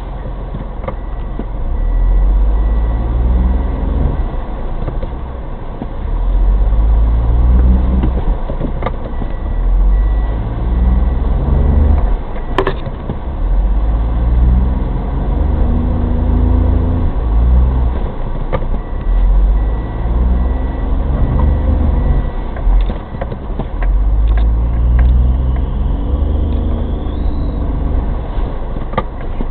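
Daihatsu Terios Kid's engine revving again and again, each rev rising in pitch and dropping back, as the car is stuck in a snowdrift and tries to drive out. A sharp knock sounds about halfway through.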